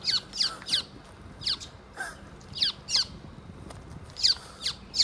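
Figbirds squawking: about ten short, sharp calls that sweep down in pitch, often coming in pairs, given while a fledgling is being chased and caught.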